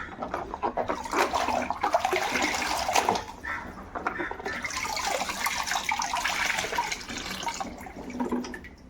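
Water running and splashing over plastic toy cars as they are washed, with small knocks and clicks mixed in. It starts right away and eases off near the end.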